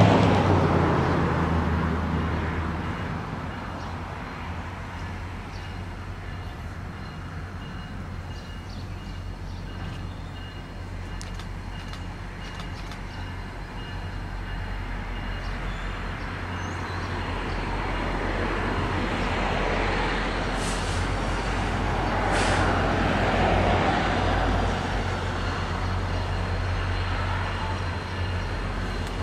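Diesel locomotive approaching: a steady low engine hum and running noise that grows louder through the middle of the stretch.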